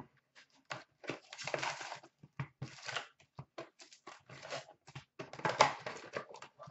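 Cardboard hobby box of hockey card packs being opened, with the foil packs slid out and set down in a stack on a glass counter: irregular rustling, scraping and light knocks, the loudest cluster a little past halfway.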